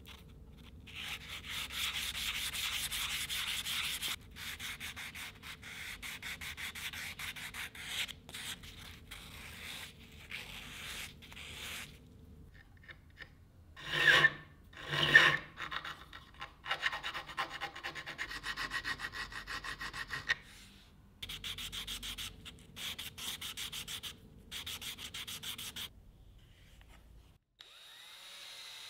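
A small round metal part rubbed by hand on sandpaper over a wooden block, in quick back-and-forth strokes with a few short pauses and two louder scrapes about halfway through. Near the end a power drill with a brass wire wheel starts to run.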